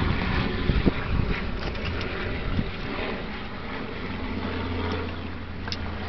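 Wind buffeting the microphone, a steady rushing noise with a low rumble, with a few clicks and knocks as hinged aluminium-framed solar panels are swung open.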